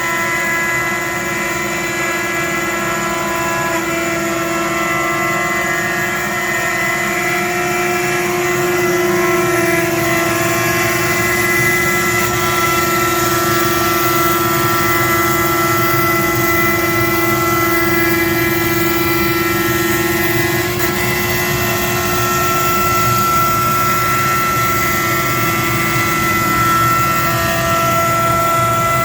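Avid CNC router's spindle running steadily while a surfacing bit skims the waste board: a constant whine with several steady tones over a high hiss of cutting.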